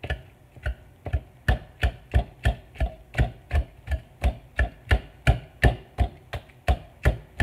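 Wire whisk mashing avocado into pico de gallo in a bowl, its wires striking down through the soft avocado onto the bottom of the bowl in a steady rhythm of dull knocks, about three a second.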